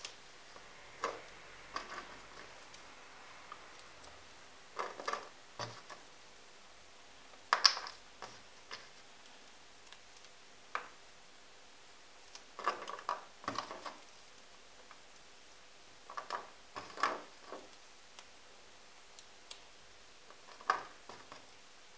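Small buttons clicking against each other and against the needle as they are threaded onto a thread and set down on a cork board: scattered light clicks in small clusters, the sharpest about seven and a half seconds in.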